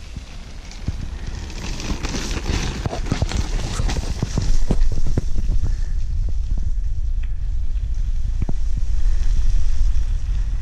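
Low wind rumble on the microphone with irregular knocks and crunches of movement along a dirt trail, growing louder about four and a half seconds in.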